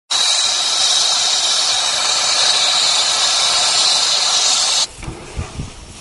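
Brazing torch flame hissing steadily as it heats a copper refrigerant line at a condenser's service valve. Near five seconds in the hiss cuts off abruptly, leaving only faint low thumps.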